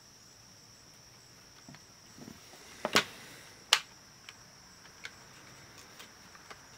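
Small plastic clicks and ticks as the mini cassette player's plastic case is handled and pressed together: two sharp clicks about three seconds in, then a few lighter ticks. A faint steady high-pitched tone runs underneath.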